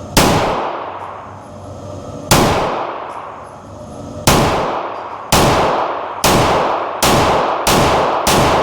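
Pistol shots fired in an indoor range: eight shots, each ringing off the walls with a long echo. They come about two seconds apart at first, then quicken to roughly one a second.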